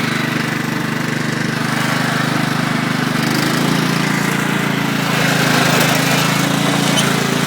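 Riding lawn mower's engine running steadily while the mower is driven, growing a little louder from about three and a half seconds in.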